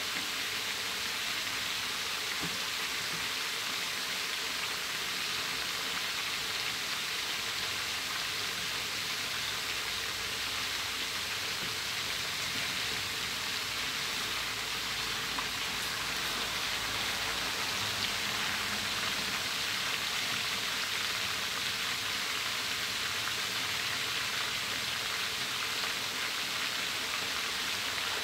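Pieces of pla som (fermented fish) deep-frying in a wok of hot oil, the oil bubbling and sizzling steadily.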